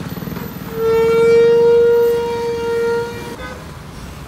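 A bus's air horn sounding one long steady blast of about two and a half seconds, over the low sound of running engines.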